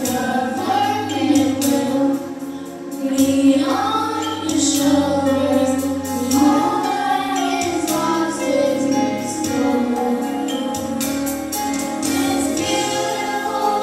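A choir singing a song over instrumental accompaniment with percussion.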